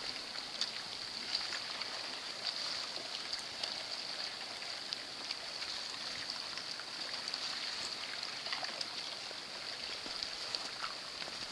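Steady rushing hiss of river water running through and under a jam of broken ice blocks, with scattered small clicks and ticks throughout.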